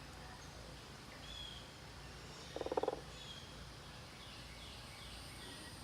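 A bird giving one short, rapid rattling call about two and a half seconds in, over faint high chirps of other birds.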